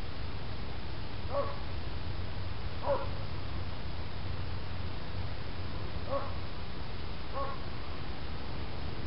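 Four short, pitched animal calls, spaced irregularly a second or more apart, over a steady low rumble.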